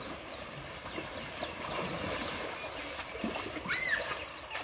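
Pond water sloshing and stirring as elephants wade around a stuck tractor, with faint high chirps and one short call that rises and falls about four seconds in.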